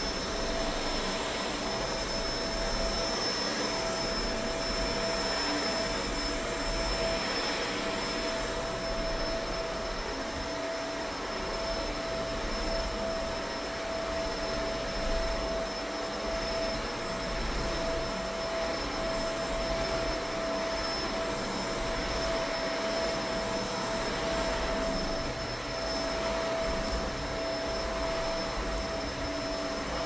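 Bagless upright vacuum cleaner running steadily as it is pushed back and forth over an area rug, its motor giving a constant whine over a steady rush of air.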